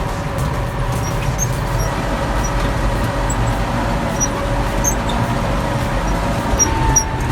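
Heavy bulldozer's diesel engine running steadily under load, with short high-pitched squeaks repeating over it.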